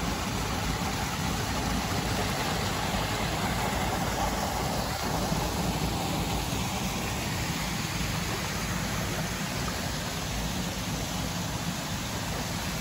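Mountain stream rushing over rocks in a small cascade: a steady, unbroken wash of water.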